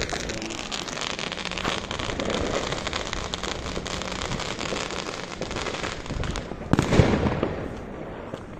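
Ground-level fireworks going off: a dense run of rapid crackling pops, then a louder bang about seven seconds in, after which the crackle dies down.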